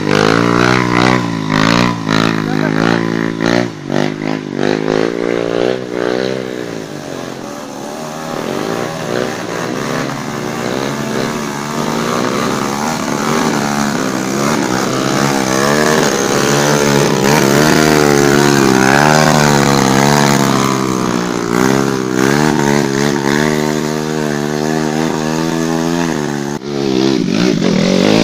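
Trail motorcycle engines revving hard, the pitch rising and falling again and again with the throttle. There is a brief break near the end.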